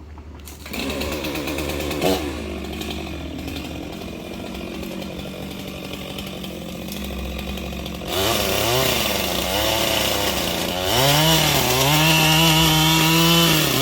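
Two-stroke chainsaw starting to run just under a second in at lower revs, then revved up about eight seconds in and held at high, steady revs near the end.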